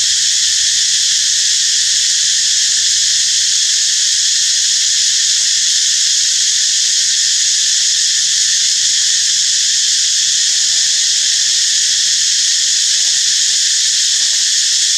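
Dense chorus of forest insects: a loud, steady high-pitched hiss that doesn't change.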